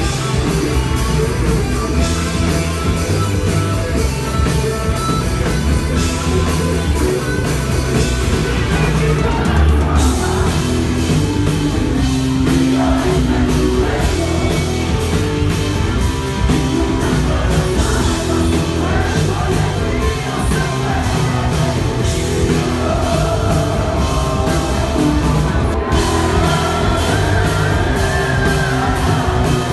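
Rock band playing live: electric guitars and a drum kit with a male singer.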